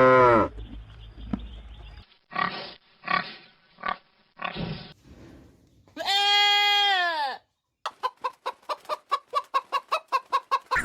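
Farm animals calling in turn: a few short calls, then a long bleat about six seconds in, typical of a goat, then a fast run of short pulsing calls, about eight a second.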